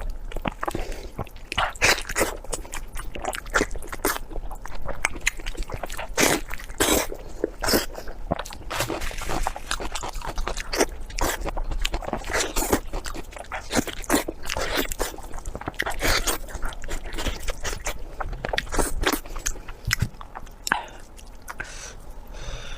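Close-miked chewing and biting of pork belly: a dense, irregular run of crisp crunches and sharp mouth clicks.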